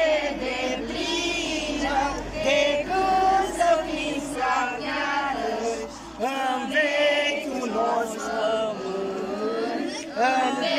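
A group of children and women singing a song together, held notes sung in unison.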